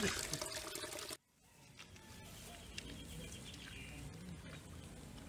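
Water splashing and sloshing for about a second, cutting off abruptly. Then a faint outdoor background with a faint high bird call a few seconds in.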